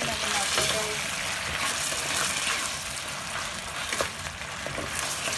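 Beef slices in a soy and oyster sauce sizzling in a nonstick frying pan, stirred with a wooden spatula. The spatula knocks against the pan a couple of times about four seconds in.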